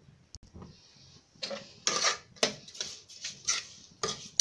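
A spoon scraping and clinking against a cooking pot in short, separate strokes, starting after a quiet first second, as sugar is added to and stirred into mashed milk-boiled cauliflower.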